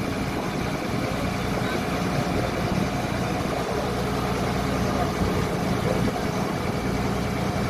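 Ferry launch's engine running with a steady low drone.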